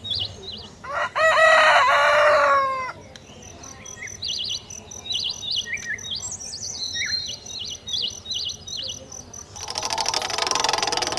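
A rooster crows once, about a second in, over repeated high chirps of small birds. Near the end a dense, fast buzzing noise starts.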